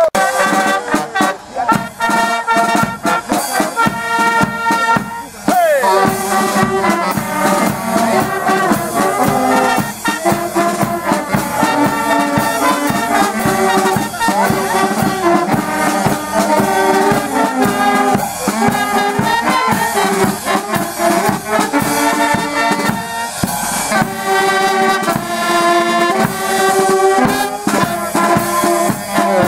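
Brass band playing a tune, with trumpets and trombones carrying the melody over a steady beat.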